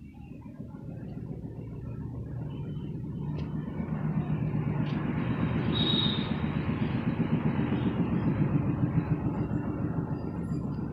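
Low rumble of a passing vehicle, growing louder over the first four seconds and then holding, with a short high squeal about six seconds in.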